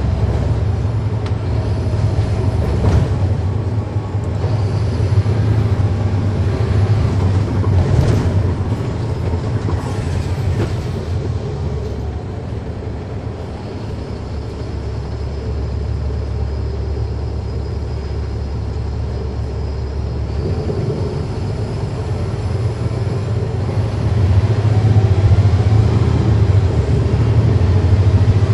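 Cabin sound on board a 2009 NABI 40-foot transit bus: its Caterpillar C13 ACERT diesel engine running with a deep, steady rumble, plus a few knocks and rattles in the first ten seconds or so. It eases off a little around the middle and grows louder again near the end.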